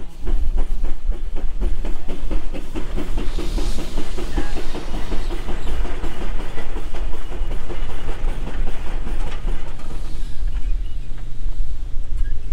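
J.I. Case steam traction engine running as it drives away, with a rapid, even clatter, and a brief hiss of steam about four seconds in.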